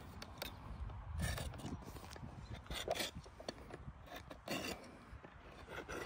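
A steel rasp filing a groove around the tip of a steer's horn, steel scraping on horn in irregular strokes, the strongest about a second in, about three seconds in and about four and a half seconds in.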